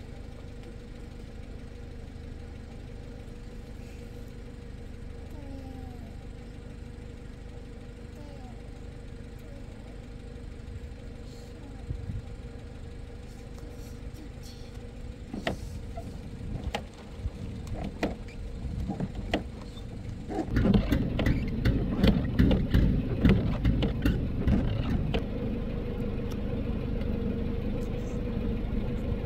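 A steady engine-like hum, with scattered knocks and rattles from about the middle that crowd together and grow loud about two-thirds of the way through.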